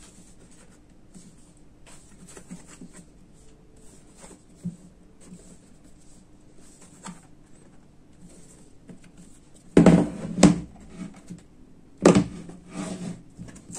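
Hard plastic carrying case being handled on a desk: light rubbing and scraping, then loud knocks of the case against the desktop about ten seconds in and again near the end, with a few smaller clicks.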